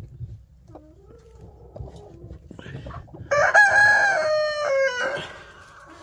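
Chickens clucking softly, then a rooster crows once, about three seconds in, in one long call held level before it falls away at the end.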